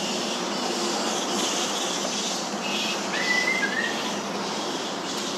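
Steady background hiss, with a single short whistled note about three seconds in that slides slightly down in pitch.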